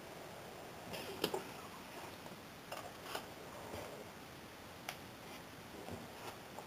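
Handling noise: faint rustling with a few sharp little taps and clicks as gloved hands move plush teddy bears about in a cardboard box, the sharpest tap about a second in.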